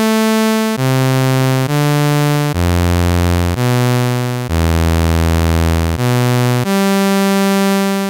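Software synthesizer playing a raw sawtooth wave, made as the arctangent of the cotangent, in a run of about nine low notes stepping up and down, each lasting about a second. The last note is held and begins to fade near the end.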